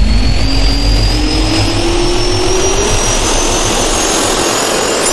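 Jet-engine spool-up sound effect: a whine rising steadily in pitch over dense rushing noise, cutting off abruptly at the end.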